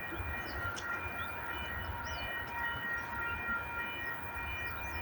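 Approaching freight train led by a multi-locomotive consist, heard from a distance: a steady low rumble with a whine held on one pitch above it.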